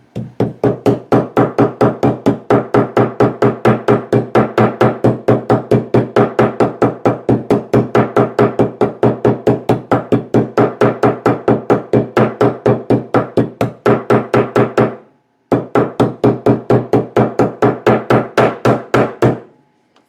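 Hammer rapidly tapping on a steel bench anvil, about four strikes a second, each blow ringing the steel, while peening over a copper rivet. The tapping pauses briefly near the three-quarter mark, then resumes before stopping near the end.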